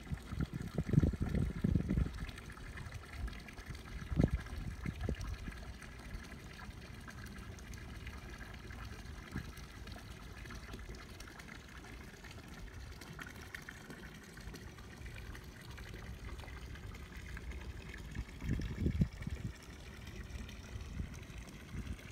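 Water lapping and trickling against moored boat hulls, with low buffeting rumbles in the first couple of seconds and again near the end.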